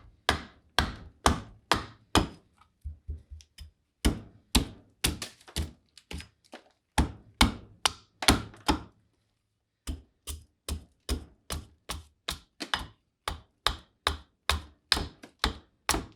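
Hand-tool blows chopping into green black walnut wood, sharp strikes at about two a second. Some lighter, quicker taps come a few seconds in, and there is a short pause just after the middle.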